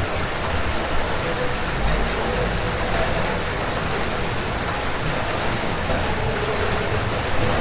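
Heavy rain falling steadily: a dense, even hiss of countless drops on surfaces.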